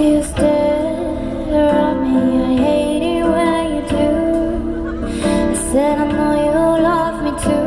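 A solo female voice sings a slow pop ballad live over backing music, in several phrases of long held notes with vibrato.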